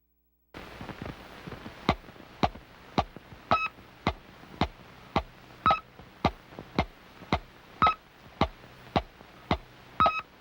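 Electronic sound effects on a vintage cartoon soundtrack: a steady ticking click a little under twice a second, with a short high beep on every fourth tick, over film hiss.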